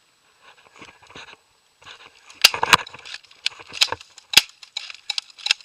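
Airsoft gun firing a run of single shots, about seven sharp cracks at uneven intervals starting a couple of seconds in, after some faint handling clicks.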